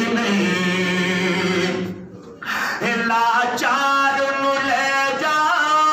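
A man singing a devotional kalam solo into a microphone, with long held notes. He breaks off for about half a second about two seconds in, then resumes with wavering sustained notes.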